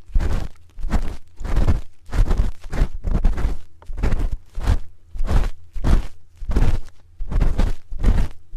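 ASMR ear cleaning on a microphone: a spoon scraping and rubbing against the microphone's ear in steady repeated strokes, about two a second, each with a deep rumble close to the mic.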